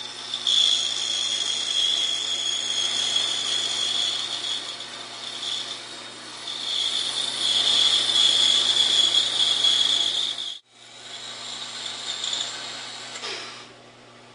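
A 14-inch bandsaw running and cutting a curve through a wooden block: a steady high-pitched cutting whine over the motor's hum. The sound breaks off for a moment about ten and a half seconds in, then goes on more quietly and eases off near the end.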